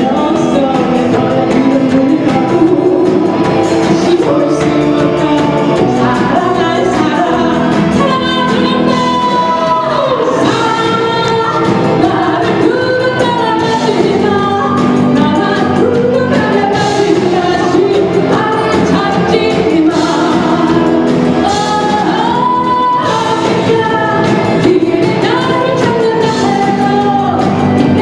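A live band playing a song with a singer: vocals over drums, electric guitars and keyboard.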